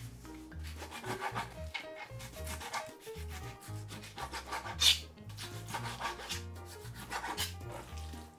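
Chef's knife cutting raw chicken thigh on a plastic cutting board: a run of short slicing strokes and scrapes against the board, with a sharper knock about five seconds in. Soft background music plays under it.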